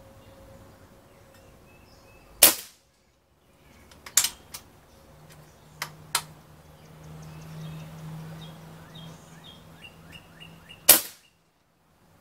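Umarex Gauntlet .22 PCP air rifle firing two sharp shots about eight and a half seconds apart. Between the shots come several lighter clicks as the bolt is worked to chamber the next pellet.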